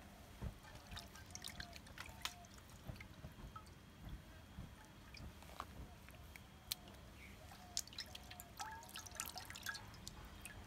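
Scattered wet ticks and drips as hands pick up and lay down raw trigger fish fillets on a plate, with faint short chirps repeating in the background.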